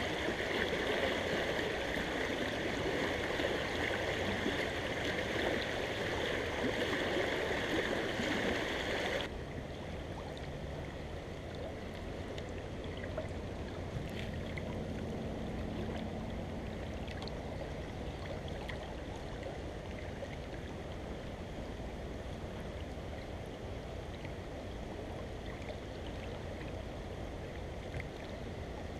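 Creek water rushing steadily over a shallow riffle. About nine seconds in it drops abruptly to a quieter, steady flow.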